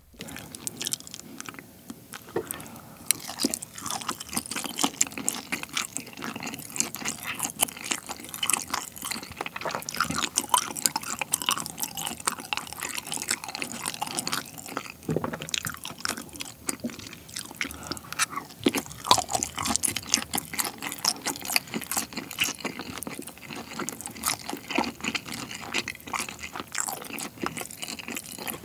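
Close-miked chewing of thick olive flounder nigiri sushi: a dense, continuous run of small mouth clicks and smacks.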